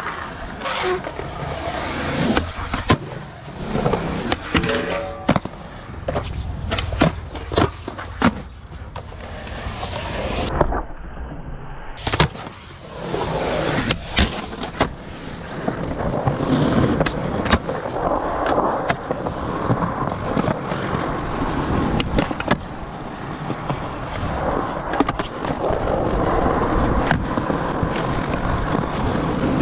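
Skateboards on a concrete skatepark: hard wheels rolling with a steady rumble, broken again and again by the sharp pops and clacks of tails snapping and boards landing.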